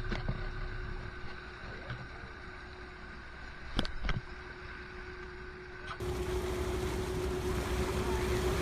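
Fishing boat's engine running with a steady hum, with a couple of sharp knocks about four seconds in. After about six seconds a louder wash of wind and water noise comes up over the engine.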